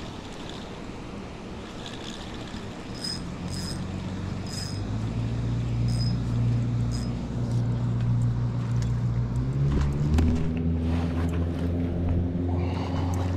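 An engine running and growing louder, its pitch stepping up about ten seconds in.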